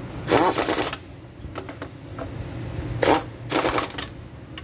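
Pneumatic impact wrench hammering on the transmission oil pan bolts of a Toyota Land Cruiser, in short bursts of rapid rattling: one of about half a second at the start, then two shorter bursts about three seconds in, with a few light metallic clicks between.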